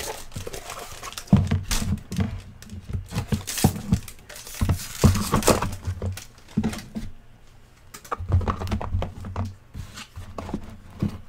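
Foil trading-card pack wrapper crinkling and rustling as gloved hands pull the cards out, with irregular handling knocks and low thumps.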